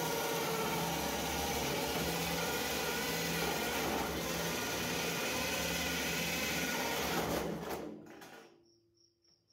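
Cordless drill driving a hole saw through the wall of a galvanized steel can, a steady grinding cut with the motor running under load. It stops about eight seconds in, once the hole is through and the saw is pulled out.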